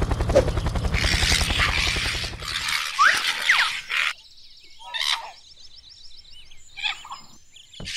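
Cartoon sound effects: a fast low rattling roll for the first few seconds under a harsh hissing screech, then two short rising squeals, followed by softer chirps and light ticking.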